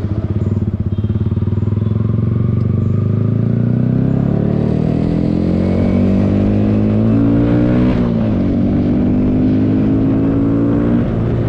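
Sport motorcycle engine pulling away from a stop and accelerating through the gears. The pitch climbs steadily, falls at a gear change about eight seconds in, climbs again, and dips at another shift near the end.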